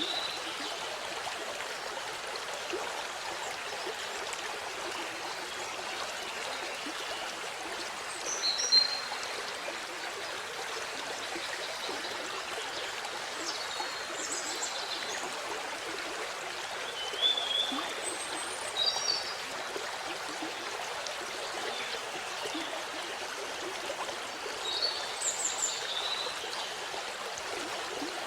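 Steady rush of falling water from a waterfall. Short high bird chirps come through it at intervals, a few times.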